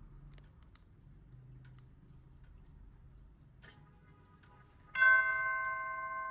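Faint clicks, then about five seconds in the brass chime tubes of a nine-tube grandfather clock begin to strike. A loud bell-like note rings on: the start of the clock's chime.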